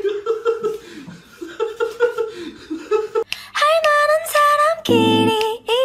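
A person's voice with laughter, then about three seconds in a song with high sung notes starts.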